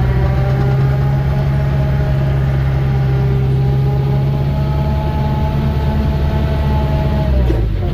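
An engine running at a steady speed, its pitch dipping briefly near the end.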